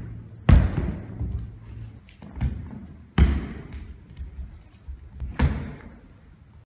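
Bare feet and body landing on a studio floor during flips and acrobatic moves: three heavy thuds two to three seconds apart with a lighter one between, each echoing in the large empty room.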